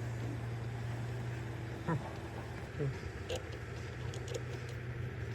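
A steady low machine hum, with a short falling voice-like call about two seconds in and another a little before three seconds, followed by a few light clicks.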